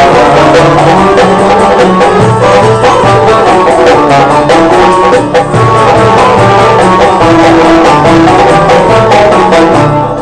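Live traditional folk ensemble playing an instrumental passage: a string-instrument melody over a steady frame-drum beat, with no singing.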